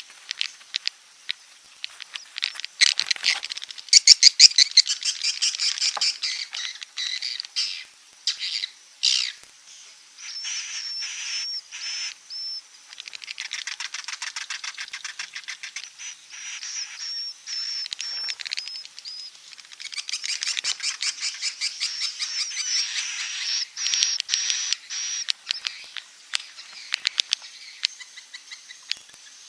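Swiftlets twittering: rapid, high chattering trills and chirps that come in bursts, with a run of short repeated notes in the middle. This is the kind of 'inap' (roosting) call played in swiftlet houses to draw the birds in to roost.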